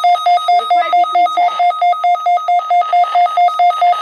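Midland weather radio's alert beeper sounding a rapid, even electronic beep, about six beeps a second, the radio's signal that it has received an alert (here a Required Weekly Test).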